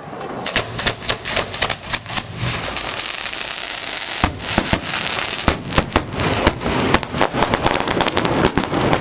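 Fireworks being fired at close range from the launch barge: a dense, rapid run of sharp bangs and pops over a steady crackle, starting just after the beginning.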